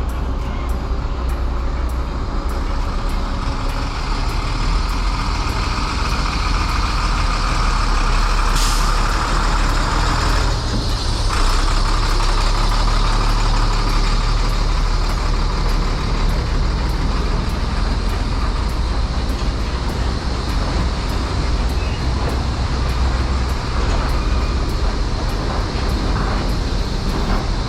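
Heavy road traffic with trucks and buses running past, a dense, steady rumble. A short, sharp hiss comes about eight seconds in.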